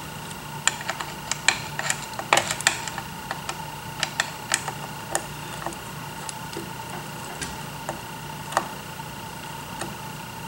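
Hand screwdriver working a screw into a high-density polyethylene (HDPE) robot base plate: sharp, irregular clicks and ticks of the tool on the screw and plate. A steady hum runs underneath.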